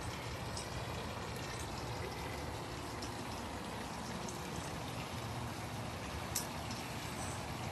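Steady trickle and splash of running water from the backyard swimming pool, with one light click about six seconds in.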